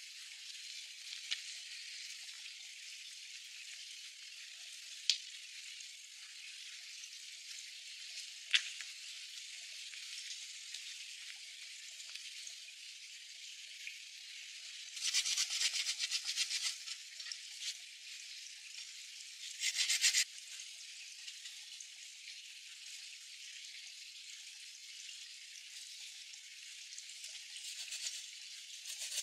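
Stones and soil shifted and scraped by gloved hands: a few sharp clicks of rock on rock, then two short bursts of gritty scraping about halfway through, over a steady background hiss.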